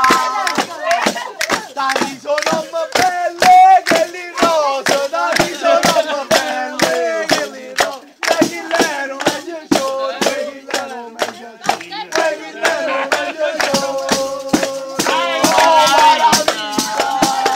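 Southern Italian folk song: a voice singing long, wavering held lines over a steady beat of sharp percussion hits, about three a second, with a short break in the singing about eight seconds in.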